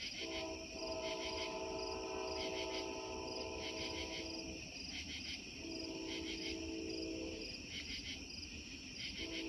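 Amtrak Empire Service passenger train's horn sounding a long chord blast, then a shorter blast after a pause, and a third starting near the end. Crickets chirp steadily underneath.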